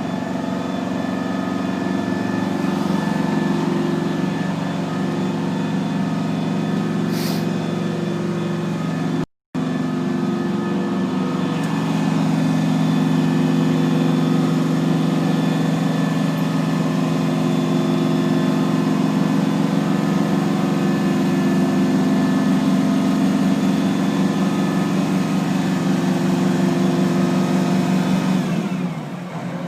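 Aerial ladder fire truck's engine running steadily at raised revs, driving the ladder's hydraulics as the ladder is run out. It gets a little louder a few seconds after a very brief dropout, and the revs fall away near the end.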